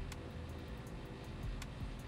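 Quiet background music with a light ticking beat: a sharp tick about every second and a half, over a low steady rumble.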